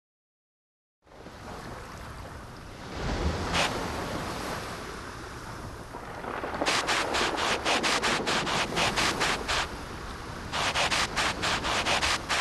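Woodpecker pecking at wood: one tap, then two runs of quick, even taps at about five a second, over a steady outdoor wind-like hiss.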